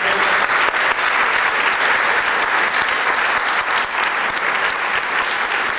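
A congregation applauding: many hands clapping densely and steadily.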